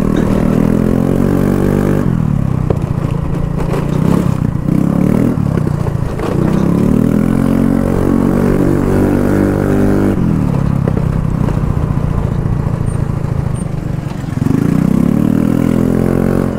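Yamaha Fascino scooter's single-cylinder four-stroke engine, breathing through an aftermarket Akrapovic exhaust with the dB killer removed, revved hard several times, its pitch rising and falling in long sweeps. A few sharp pops from the exhaust come a few seconds in.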